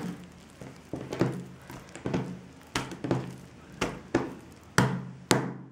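Hands rolling and twisting a rope of bread dough on a wooden table: a string of soft thumps and brushing strokes, roughly one or two a second, with two sharper knocks near the end.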